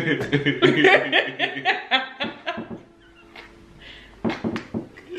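People laughing loudly in quick bursts. The laughter dies down about three seconds in and picks up again near the end.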